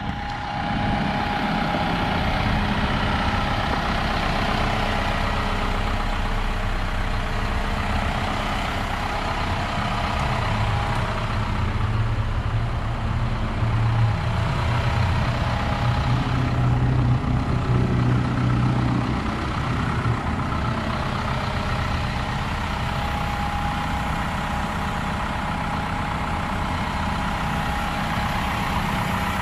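Isuzu NQR cab-over truck's engine idling steadily. A deeper low hum grows louder for several seconds in the middle, then eases back.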